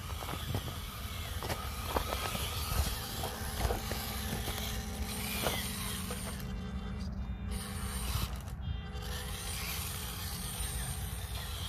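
Small electric 1/18-scale RC crawler's motor and gearbox whining steadily as it crawls over rocks, with scattered clicks and knocks of its tyres and chassis on stone.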